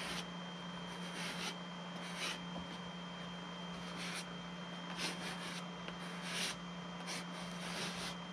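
A small spreader scraping and rubbing acrylic filler paste into the seams of a foam model fuselage, in a string of short, unevenly spaced strokes.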